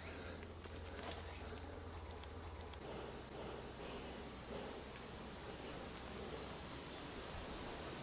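An insect trilling one steady, high-pitched note without a break.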